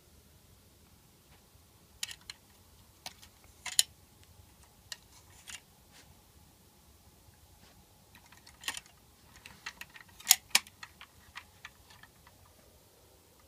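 Scattered small clicks and taps from a die-cast toy garbage truck being handled, its metal and plastic parts knocking as it is moved and picked up. The loudest is a close pair of sharp clicks about ten seconds in.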